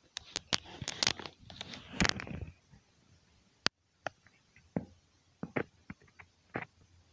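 Two kittens play-fighting on a rug. First comes a busy flurry of scuffling, rustling and scratching paws lasting about two seconds, then a single sharp click, then scattered light taps and scuffs as they wrestle.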